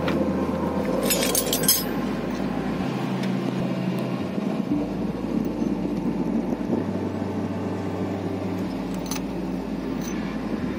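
Metal clinks as a truck air compressor head and spanners are handled, a cluster about a second in and one more near the end, over a steady mechanical hum.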